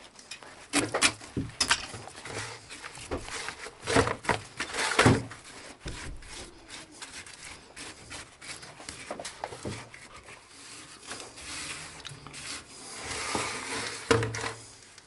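Rubbing and scraping with scattered knocks as gloved hands scoop cement mortar from a plastic bucket and smear it over a cracked cast-iron sewer pipe. The loudest knocks come about four to five seconds in and again near the end.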